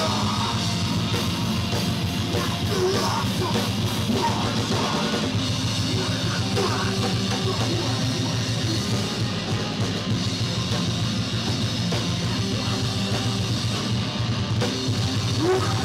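Live heavy metal band playing loud, with distorted electric guitar and drum kit.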